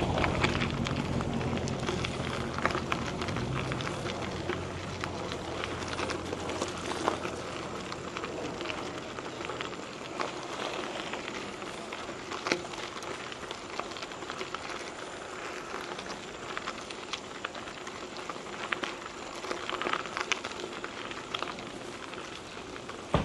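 Mountain bike tyres rolling over a gravel trail, a steady crunch with many small ticks and pops from the stones. A low rumble underneath fades out about five seconds in.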